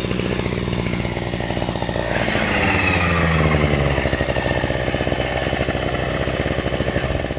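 Petrol string trimmer (brush cutter) running at high revs while its line head cuts through tall grass and weeds, getting a little louder about two seconds in.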